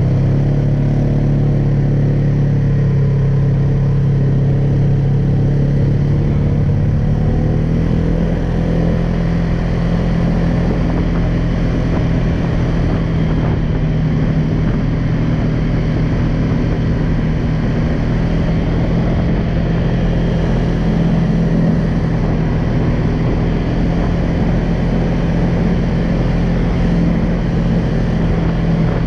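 Polaris Sportsman 570 ATV's single-cylinder engine running steadily while the quad is ridden, its pitch stepping up slightly about seven seconds in.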